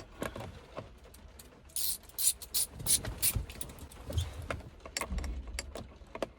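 Ratchet with a T30 Torx bit on an extension loosening the steering-wheel screws: a run of irregular clicks and short scrapes of metal tools.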